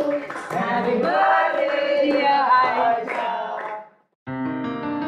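A group of people singing together, fading out a little before four seconds in. After a moment of silence, piano music begins.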